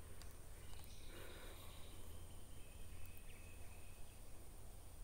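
Faint outdoor creek ambience: a steady low rumble and a few faint high chirps, with light clicks from a baitcasting reel being wound in.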